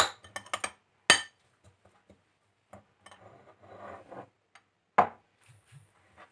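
Metal spoon clinking and scraping against a ceramic bowl while stirring a thick coconut paste: a few sharp clinks, a louder one about a second in and another about five seconds in, with softer scraping between.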